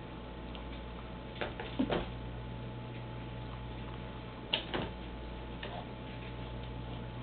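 A kitten batting at a sheet of paper and a piece of cardboard on carpet: a few soft taps and rustles about one and a half seconds in, and a sharper tap around four and a half seconds in, over a steady low hum.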